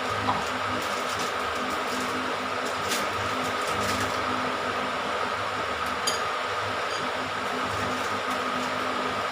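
An electric fan running steadily, a constant whir with a low hum and a thin high whine, with a few faint light taps.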